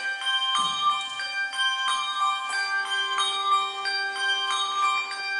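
Handbell choir ringing a tune: handbells struck one after another, several times a second, each note ringing on and overlapping the next.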